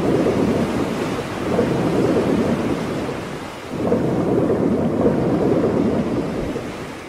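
Intro sound effect: a loud rushing, rumbling noise like surf or thunder, swelling up about a second in and again near four seconds, then fading near the end.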